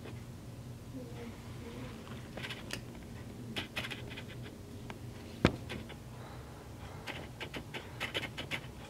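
Light scratches and clicks come in small clusters, with one sharper click about halfway, over a steady low hum.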